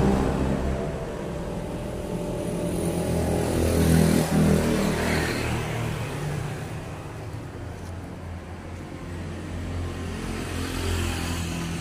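Road traffic passing close by: a truck's engine fades away at the start, another vehicle swells and passes about four seconds in, and a steady traffic rumble fills the gaps.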